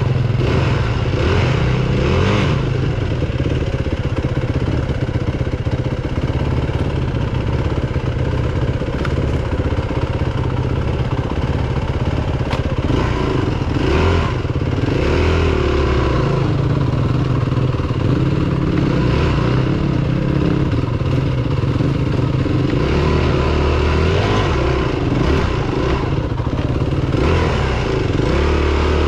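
Yamaha WR250F dirt bike's four-stroke single-cylinder engine heard from on board, ridden slowly on a rough trail with the throttle rising and falling. A few knocks and rattles from the bike come in over bumps.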